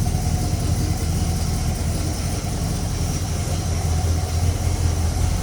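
A 1970 Pontiac GTO's 455 V8 idling steadily with a deep, even low rumble.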